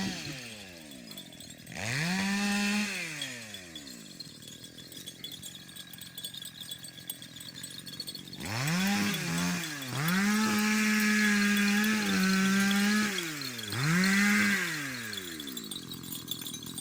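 Small two-stroke engine, a chainsaw, revved up to full throttle and let back down to idle three times. There is a short rev about two seconds in, then a longer wavering run of several seconds past the middle, then one more short rev; it idles quietly in between.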